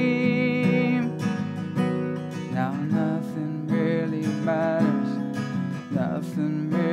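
Acoustic guitar strummed in a steady rhythm under a man's sung note, which is held and stops about a second in.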